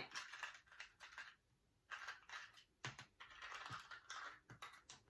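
Faint irregular clicks and short rustling, crunching noises of ice cubes being handled for a portable blender.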